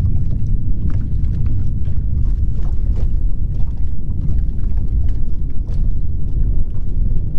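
Strong wind buffeting the camera microphone in a steady low rumble, with faint scattered ticks over it.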